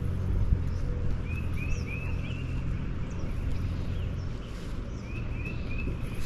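A bird singing two short phrases, each a quick run of four or five repeated chirping notes. Under it is a low rumble that drops away about four seconds in.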